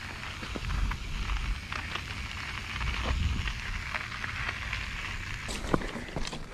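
Mountain bike tyres crunching over a gravel path, a crackly stream of small clicks, with low gusts of wind buffeting the microphone. About five and a half seconds in, the sound changes to sharper clicks and knocks as the bike rolls over a leaf-covered dirt trail.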